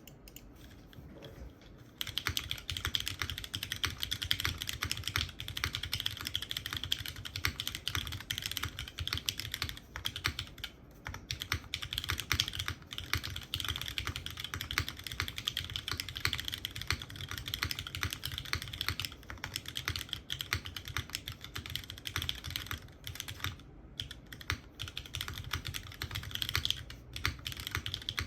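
Steady typing on a custom mechanical keyboard: Cherry MX Hyperglide Black linear switches, lubed, filmed and fitted with 55 g springs, on a full aluminium plate in a gasket-mounted polycarbonate Drift Mechanics Forever65 case, with GMK Modern Materials keycaps. Fast keystrokes start about two seconds in and run on with a few brief pauses.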